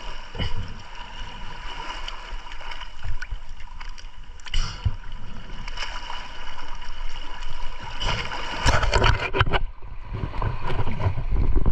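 Seawater sloshing and splashing around a camera held at the surface, with louder, busier splashing about eight seconds in as a speared fish is lifted from the water.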